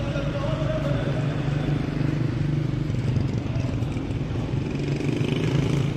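Steady low rumble of outdoor background noise, with a faint held tone that fades about a second in.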